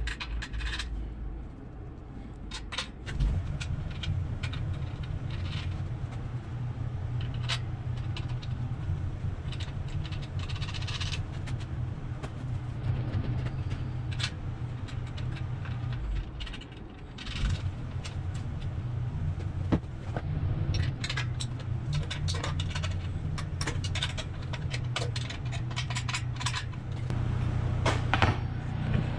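Scattered metallic clinks and scrapes of bolts and nuts being fitted and snugged down on an electric motor's mounting base on an air compressor, over a steady low hum.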